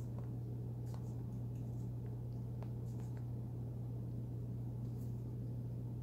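A steady low hum with a few faint, scattered clicks and ticks: a cockatoo's and a parrotlet's beaks picking food off a metal spoon.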